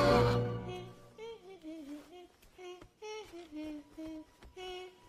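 A loud held sound cuts off about half a second in. Then a soft, slow sung melody follows, made of short notes that slide and waver in pitch with brief pauses between them.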